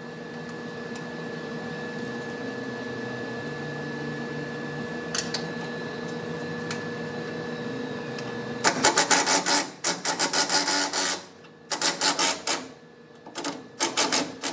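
A steady low shop hum with a faint high tone, then, about two-thirds in, a ratchet wrench clicking fast in bursts with short pauses as the drive shaft bolts are worked loose.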